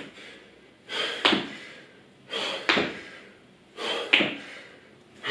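Squat jumps: a hard breath out on each jump and the knock of trainers landing on a tiled floor, repeated about every one and a half seconds, three times, with a fourth starting at the end.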